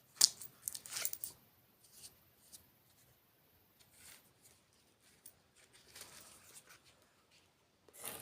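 Knives and sharpening gear being handled on a work surface: sharp clicks and short scrapes, loudest in a cluster in the first second, with softer rustling later and another click near the end.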